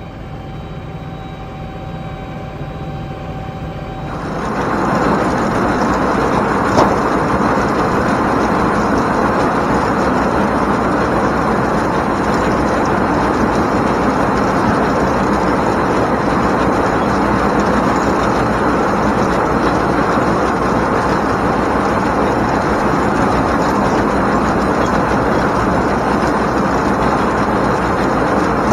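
International Harvester 1486 tractor's six-cylinder diesel running in the field with the mounted two-row ear corn picker working. The sound turns suddenly louder and rougher about four seconds in, then holds steady.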